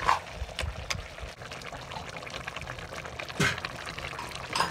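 Buffalo meat curry bubbling and sizzling in a broth in an iron wok, with a few sharp knocks of the ladle against the pan.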